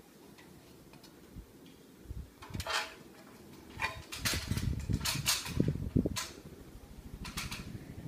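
Fanimation Benito ceiling fan running with a steady low hum and air noise. Loud irregular rustling bursts and thumps cover it from about two and a half to six seconds in, with one more shortly before the end.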